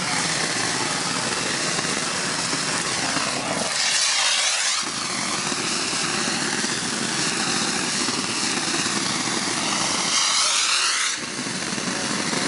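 Shotcrete nozzle spraying concrete with compressed air onto a footing: a loud, steady rushing hiss. Twice the sound turns thinner and sharper for about a second, about four seconds in and again about ten seconds in.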